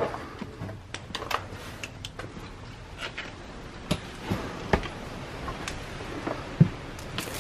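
Footsteps crunching and scuffing over scattered debris and rubble, with irregular small clicks and a few heavier thumps, the loudest about six and a half seconds in.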